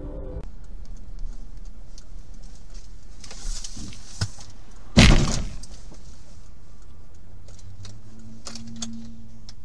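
Dashcam audio from inside a moving car: a steady low engine and road hum, with one loud, sharp knock about five seconds in and a few small clicks.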